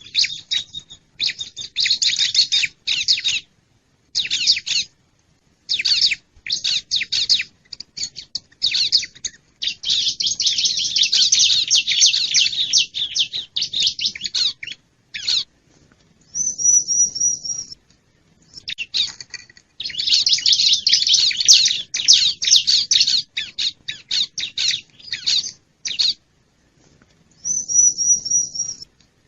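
Bar-winged prinia (ciblek) calling: repeated bursts of fast, high chattering, two longer dense trills, and a couple of short, high, wavering notes.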